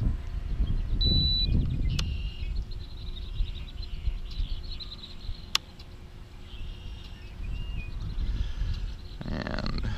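Wind buffeting the microphone in gusts, with birds chirping in the background.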